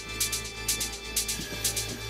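Music with a steady beat: short high ticks about twice a second over a held low bass note.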